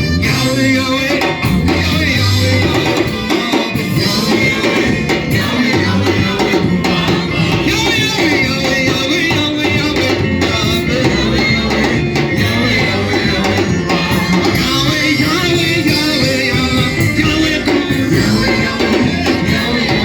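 Live worship music: a band playing with voices singing over it, continuous and at full level.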